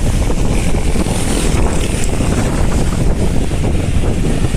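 Wind buffeting a camera microphone on a bicycle riding at speed: a loud, steady rumbling rush.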